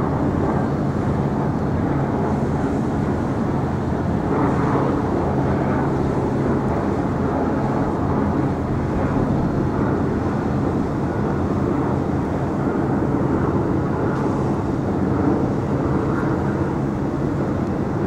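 Steady low engine drone.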